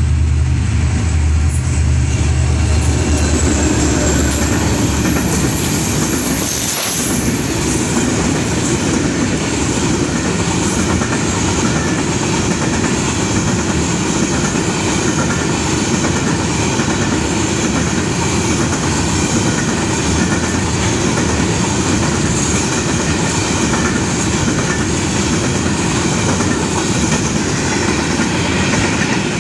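HGMU-30 diesel locomotive passing close by with its engine loud for the first few seconds, then a long string of freight hopper wagons rolling past, a steady rumble and clatter of wheels on the rails.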